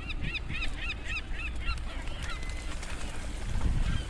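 Geese honking: a quick run of short calls for the first second and a half or so, then a few scattered calls, over a low steady rumble.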